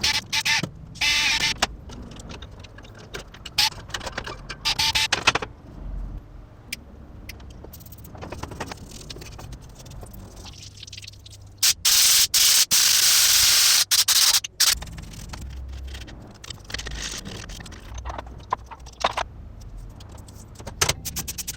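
Handling noises from work on an old PC: scattered clicks, knocks and scrapes, with a loud, steady hiss lasting about three seconds near the middle.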